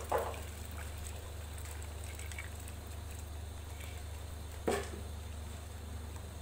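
Tamarind and pomegranate-seed water pouring from a blender jar into a steel strainer over a pot of kadhi, over a steady low hum. Two short louder sounds stand out, one at the start and one near the end.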